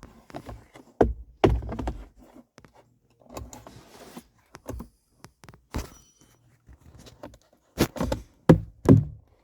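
A series of irregular hollow knocks and thunks from plastic interior parts of a Jeep Wrangler being handled and pushed into place, the loudest few close together near the end.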